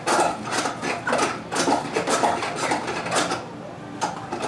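A hand-operated plastic Easter-egg spinner being worked, its mechanism clattering in repeated strokes that drop off briefly near the end.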